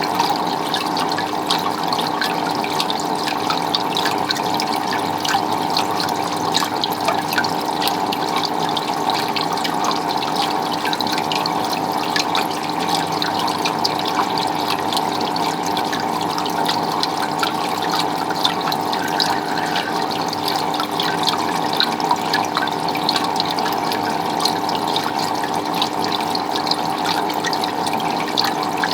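Water running and splashing steadily, with many small sharp splashes and drips over a continuous rushing flow.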